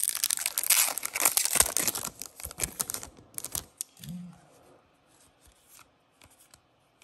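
Shiny foil trading-card pack wrapper being torn open and crinkled for the first three and a half seconds or so, then faint ticks of the cards being handled.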